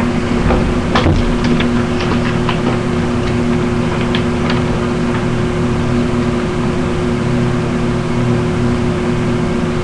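Window air conditioner running with a steady hum and whir. A few light clicks and rustles in the first half as things are handled.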